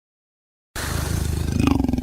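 A big cat's low, rasping growl that starts abruptly after a moment of dead silence.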